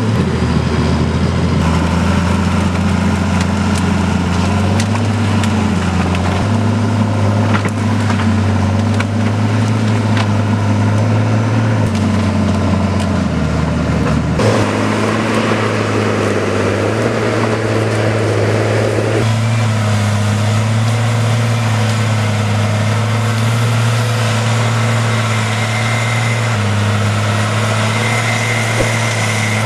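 Heavy machine's diesel engine running steadily, its note changing abruptly a few times, with scattered clicks and knocks over it.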